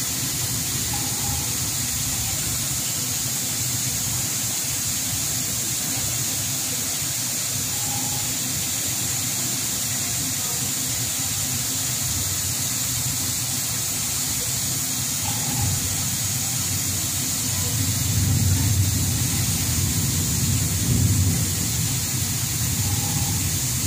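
A steady machine hum with a hiss over it; the low hum grows louder about two-thirds of the way through.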